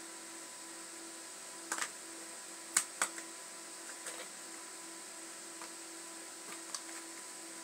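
Blue plastic circular track cat toy clicking and knocking a few times as kittens paw at it, about six short sharp clicks with the loudest around three seconds in. A steady faint electrical hum runs underneath.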